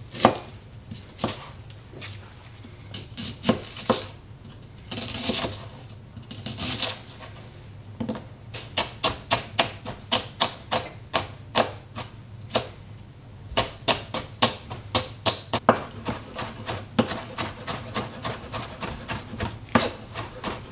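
Kitchen knife cutting shallot on a cutting board. A few irregular cuts come first, then from about eight seconds in the blade strikes the board quickly and evenly, about three times a second, as the shallot is finely chopped.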